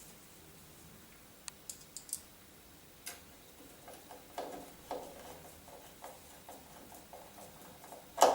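A Phillips screwdriver driving screws into a new door keep, making small irregular clicks and ticks as the screws turn. A single louder knock comes near the end.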